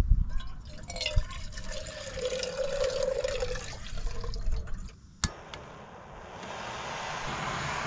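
Water poured from a plastic jug into a cooking pot, splashing as it fills for about four seconds. A sharp click a little after five seconds, then a steady gas hiss from a canister camp stove on a Coleman gas canister.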